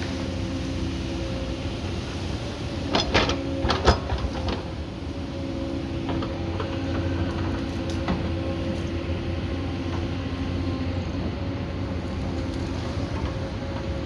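Hyundai 220 crawler excavator's diesel engine running steadily under load, with a constant hydraulic drone. A cluster of sharp knocks comes about three to four seconds in, and another near eight seconds, as the bucket works the cut.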